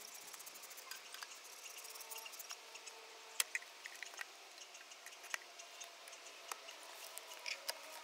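Faint, scattered clicks and knocks of wooden beehive boxes being pried apart and lifted off a hive. The sharpest crack comes about three and a half seconds in.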